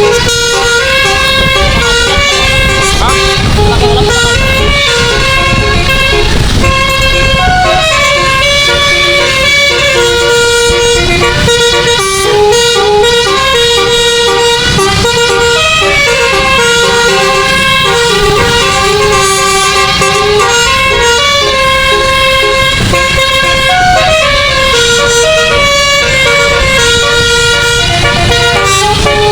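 Bus telolet musical air horn, a 12-note 'basuri' set of trumpets, playing a loud, continuous melody that steps from note to note several times a second, over a low rumble.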